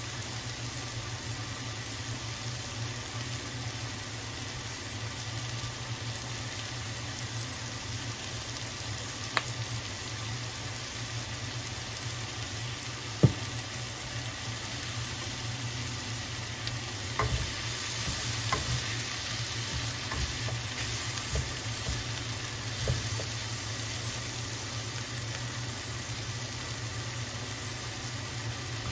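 Sliced bell peppers and onions sizzling steadily in a skillet, with a steady low hum underneath. A little over halfway through the sizzle grows louder, with a few knocks and clicks as the vegetables are stirred with a spatula.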